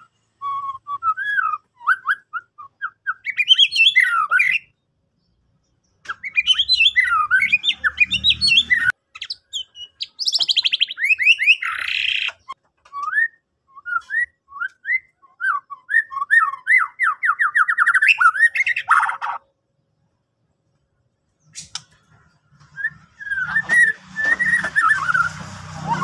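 White-rumped shama (murai batu) singing: a long string of varied whistled phrases, quick glides and fast runs of repeated notes, broken twice by short pauses.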